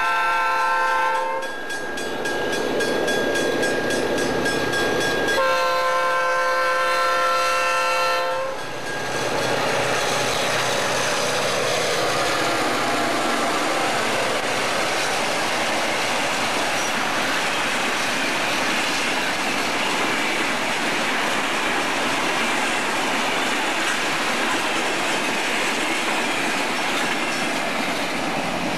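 Freight train locomotive sounding its horn twice, one blast ending about a second and a half in and a second lasting about three seconds, then the locomotive and a long string of freight wagons rolling past with steady wheel-on-rail noise.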